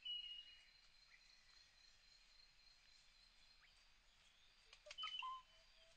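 Near silence: faint outdoor ambience, broken by a few brief, high, whistle-like calls, one at the very start and a couple about five seconds in.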